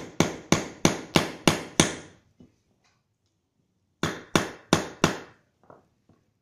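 Hammer blows on a wooden block, driving needle bearings into a motorcycle's Pro-Link suspension linkage. Sharp strikes about three a second: a run of six, a pause of about two seconds, then four more.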